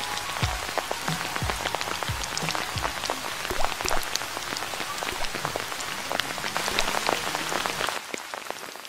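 Dense pattering of small drops and splashes on a pond's water surface, with some deeper plops in the first few seconds. It drops away about eight seconds in.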